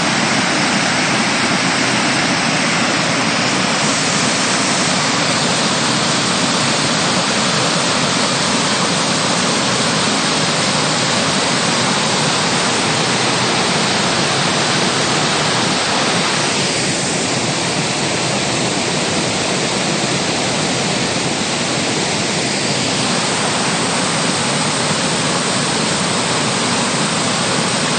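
A waterfall crashing into its pool, a loud, steady rush of falling water.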